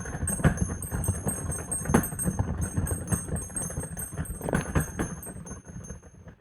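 Miniature metal bells, old bell-shaped pencil sharpeners, swinging round and ringing with high, thin chimes over a low clattering rumble, dying away near the end.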